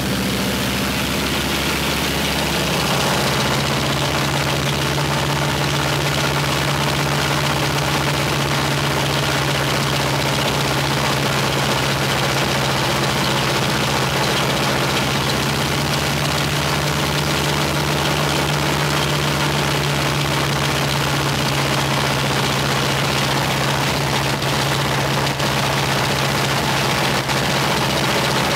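Ilyushin Il-14's Shvetsov ASh-82T radial piston engine running steadily with its propeller turning during a ground run-up. It gets a little louder about three seconds in and then holds an even speed.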